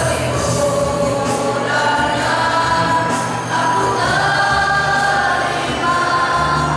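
Choir of young men singing together, holding long notes in slow phrases, with a brief break about three and a half seconds in.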